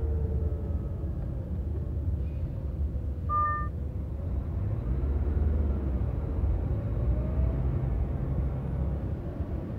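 Steady low engine and road rumble inside a car's cabin, driving slowly in traffic. A short beep sounds about three and a half seconds in.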